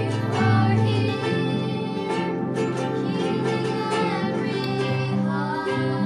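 Praise and worship song: a voice singing over guitar-led accompaniment with held bass notes.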